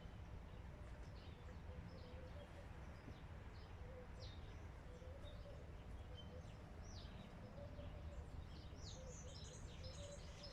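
Faint bird chirps over a low steady background rumble, the chirping growing busier near the end.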